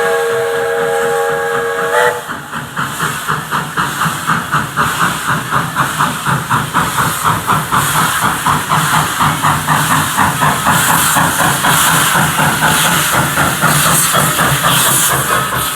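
A Baldwin 2-8-2 narrow-gauge steam locomotive blows its multi-note steam whistle, which cuts off about two seconds in. Then its exhaust chuffs in a quickening rhythm as it works away, the beats running together into a steady rush of exhaust and hiss.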